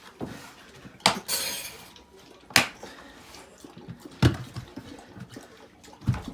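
A metal tool striking and prying at the lid of a plastic pickle bucket, working the lid's tabs loose. There are about four sharp clanks, roughly a second and a half apart, with a brief scrape after the first.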